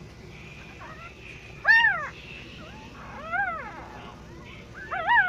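Newborn puppies crying: three high-pitched squeals, each rising and falling in pitch, about a second and a half apart.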